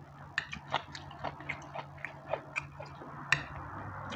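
A person eating fried rice with a fork: chewing, with a string of irregular short clicks from the fork and mouth, over a steady low hum.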